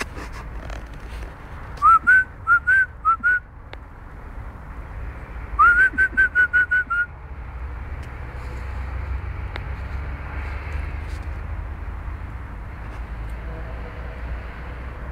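A person whistling to call dogs: two runs of short, quick whistle notes, each rising sharply and then held, about five and then about eight notes. A steady low rumble lies underneath.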